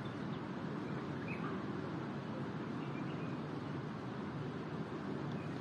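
Faint, brief bird chirps a few times over a steady low background rumble outdoors.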